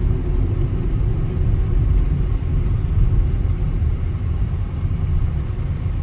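Steady low rumble of a car driving along the road, engine and tyre noise with a faint constant hum.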